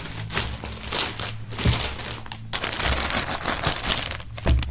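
Thin plastic film wrapping crinkling and rustling as a folded T-shirt is pulled out of it by hand, with a dull knock or two of handling.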